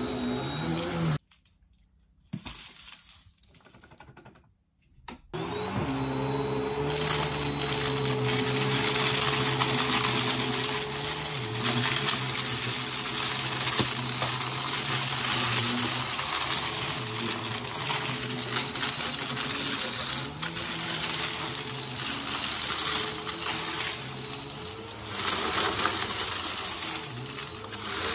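Bagless upright vacuum cleaner running on a shaggy rug, sucking up crunchy debris that crackles and rattles into the canister. The motor sound drops out about a second in and starts up again about four seconds later.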